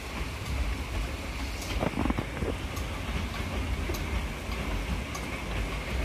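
Talyllyn Railway narrow-gauge train approaching across the Dolgoch viaduct: a steady low rumble with a few faint clicks, mixed with wind buffeting the microphone.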